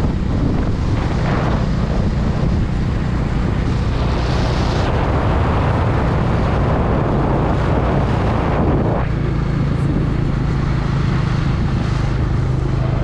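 Wind buffeting the microphone on a moving motorcycle, over the steady low hum of its engine. About nine seconds in the wind noise eases and the engine hum comes through more clearly.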